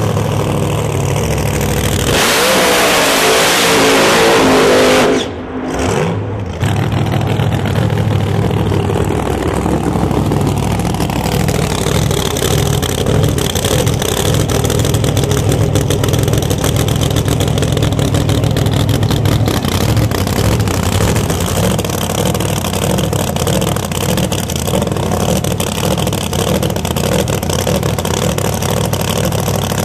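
Supercharged drag-racing door cars' engines running at low revs with occasional revving. A couple of seconds in comes a loud full-throttle burst of about three seconds that cuts off sharply.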